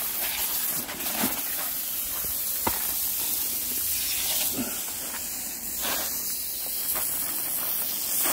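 Water spraying from a black garden hose onto soil and plants, a steady hiss with a few faint ticks. The hose is being run to flush out water heated in the sun until cold water comes through.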